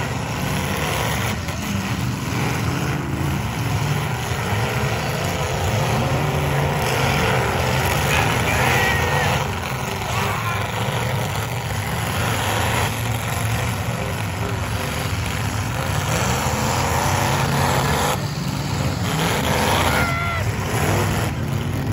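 Demolition derby cars' engines running, a steady dense engine noise without letup.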